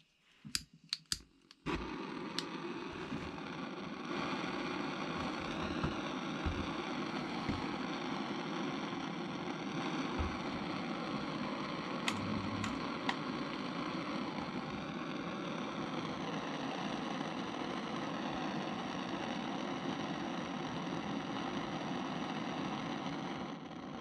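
Gas burner torch: a few sharp clicks, then the flame catches and burns with a steady rushing noise that gets louder about four seconds in and cuts off suddenly near the end.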